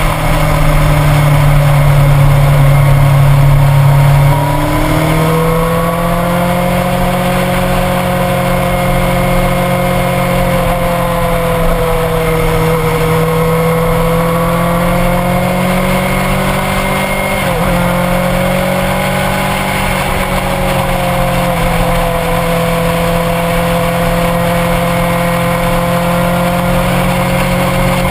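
Motorcycle engine running at a steady cruising speed under a rush of wind and road noise. It is loudest for the first four seconds, then eases off to a lower, steady note, with a brief dip in pitch at about seventeen seconds, as if from a gear change.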